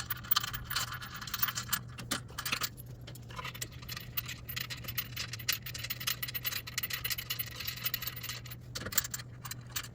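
Small steel bolts and washers clinking and rattling as they are handled and threaded by hand into a catalytic converter shield, with a dense run of fine metallic ticks in the middle, over a steady low hum.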